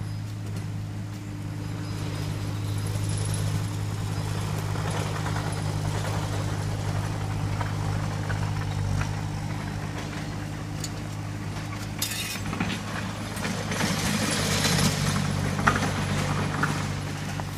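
Steady drone of a compact loader's diesel engine running on a construction site, with a few sharp knocks and clatter in the last few seconds.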